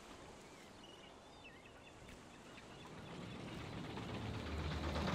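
Faint bird chirps over a quiet background, then an engine fades in, running with a fast even beat and growing louder over the last two seconds.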